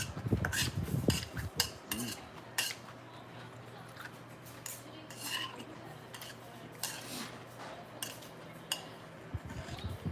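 Utensils clinking and scraping against a bowl of cold noodles while eating: a string of short, irregular clinks, over a steady low hum.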